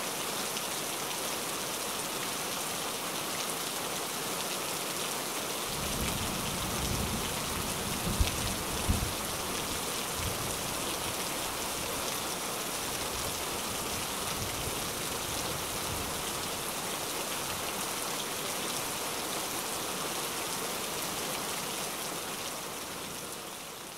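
Steady rain-like patter and hiss, with a low rumble and two sharp knocks about eight and nine seconds in; the hiss starts fading out near the end.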